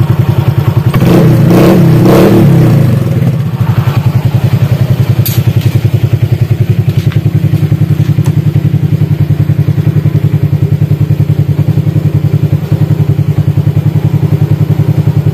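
Honda Vario 150 scooter's single-cylinder engine idling on its stand with a steady, even pulse. It gives one short rev about a second in that rises and falls back to idle by about three seconds in.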